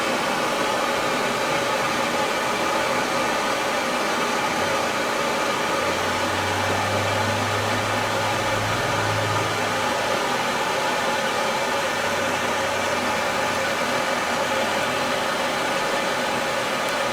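Gas torch flame making a steady rushing hiss as it burns the alarm panel's data bus wiring in a burn test.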